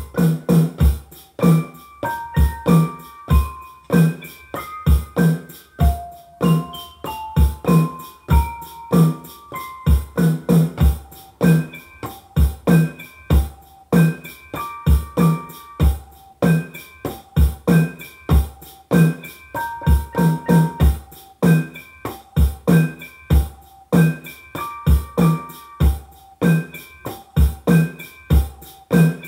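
Hip-hop instrumental beat played on a Maschine Mikro Mk1 pad controller: a keyboard melody of short stepped notes over a steady kick drum and clicky percussion.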